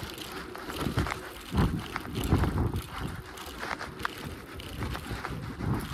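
A bicycle being ridden at speed, with wind buffeting the microphone in uneven low gusts and scattered light clicks and rattles from the bike.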